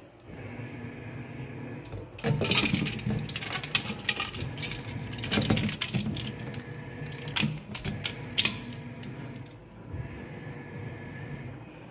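Irregular clatter and knocking of a stainless steel basin in a stainless steel sink as it is handled with ice water. The clatter starts about two seconds in, with a few sharper knocks through the middle, and eases off near the end.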